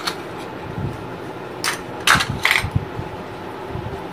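Steel spoon clinking and tapping against ceramic bowls as spice paste is scraped off into a mixing bowl, with a quick cluster of about four sharp clinks around two seconds in.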